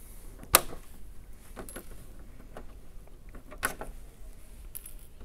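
Body clips being pulled off the body posts of an Element Sendero SE RC trail truck, with handling of its hard plastic body: a few sharp clicks, the loudest about half a second in and another near the middle, with lighter ticks between.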